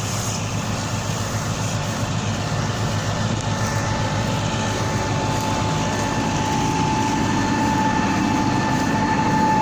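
Combine harvester running steadily, its engine and threshing gear making a dense drone with a steady high whine on top that grows a little louder through the second half.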